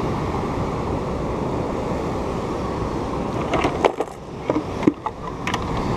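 Steady rushing of wind and surf on the microphone. In the second half it briefly drops away twice, and a few light clicks and knocks come through as the fish is set down on the lava rock.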